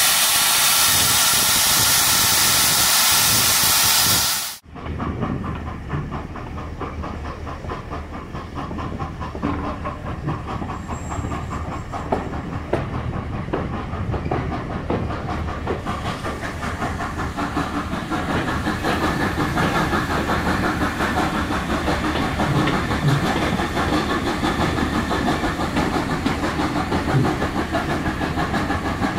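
Loud, steady hiss of steam from the saddle-tank steam locomotive Beatrice, cut off suddenly about four seconds in. After that, a train's running rumble heard from on board, with a low hum and faint knocks from the wheels, slowly growing louder.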